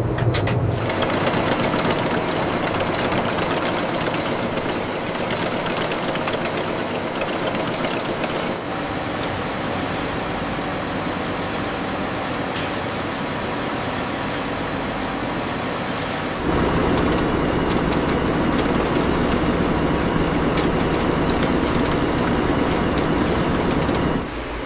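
Steady running noise of chip-factory processing machinery, a continuous rumble with faint steady whines. It changes abruptly twice, about a third and two-thirds of the way through, and is louder and deeper in the last part.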